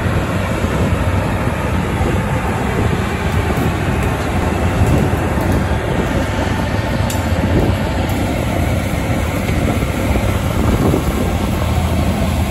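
NJ Transit Bombardier ALP-45DP dual-mode locomotive running on its diesel engine as it moves past at low speed with its single-level coaches: a steady engine hum under continuous wheel and rail noise.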